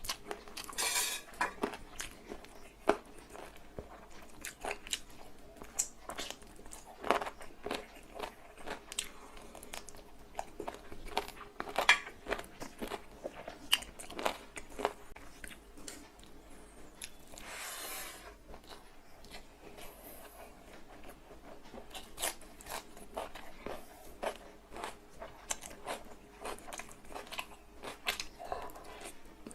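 Close-miked chewing and biting of a person eating egg fried rice with chicken curry: a stream of short, wet mouth clicks and crunches, with two longer hissing sounds about a second in and just past halfway.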